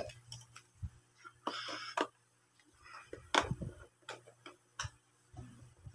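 Sporadic light clicks and knocks of plastic toys being handled, a second or so apart, with a brief rustle about a second and a half in.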